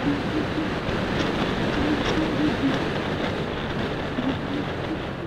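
Wind rushing over the microphone of a moving scooter, with the scooter's engine running underneath at a wavering pitch.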